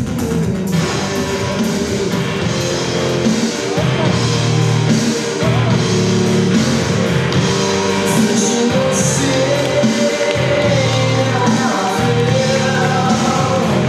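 Rock-style song with singing over a steady beat.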